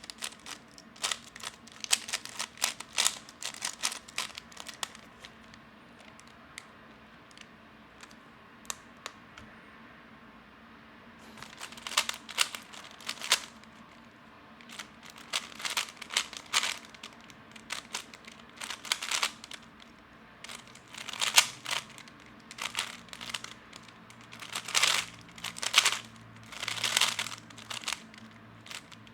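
Lubed, loosened magnetic 3x3 speedcube being turned: rapid clicking for about five seconds, a near-quiet pause of several seconds with only a few clicks, then from about eleven seconds on a long run of fast turning in bursts, the clicking of a timed speed solve.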